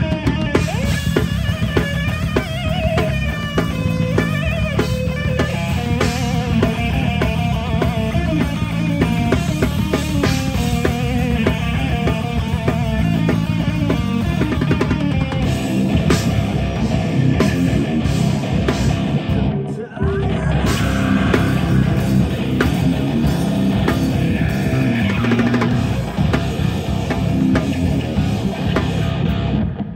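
Live rock band playing loud, with electric guitars through amplifiers over a drum kit. The band stops for a split second about two-thirds through, then plays on.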